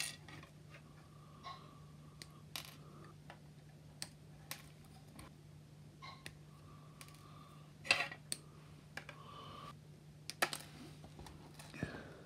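Sprue cutters snipping kit parts off a grey polystyrene plastic sprue: a dozen or so short, sharp clicks at irregular intervals, the loudest about eight seconds in.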